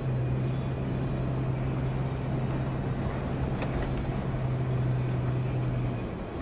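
Toyota FJ Cruiser on Toyo Open Country M/T mud-terrain tyres driving slowly over a muddy, rutted road, heard from inside the cabin: constant rumbling road and engine noise with a steady low drone that stops abruptly about six seconds in. A few faint knocks come around the middle.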